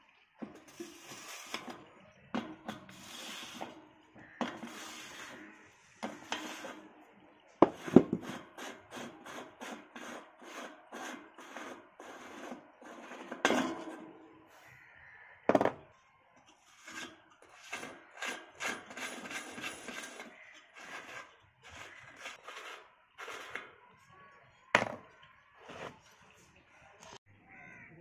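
Hand tools scraping and rubbing on rusty bicycle wheel parts in short, irregular strokes, with a few sharp knocks, the loudest about eight seconds in.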